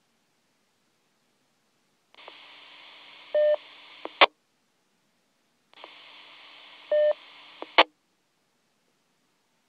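VHF ham radio repeater traffic from a Motorola M-120 mobile radio's speaker: twice, a brief keyed-up transmission with no voice. Each is about two seconds of open-squelch hiss with a short beep partway through and ends in a squelch-tail crash.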